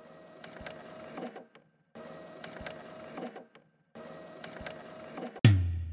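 Printer-like mechanism running in three like bursts of about a second and a half each, with a steady hum and a soft thud partway through each burst. A loud drum hit comes near the end as music starts.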